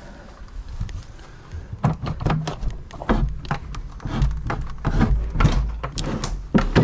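Irregular clunks and knocks of a train carriage door being worked and people clambering aboard, starting about two seconds in, over a low rumble.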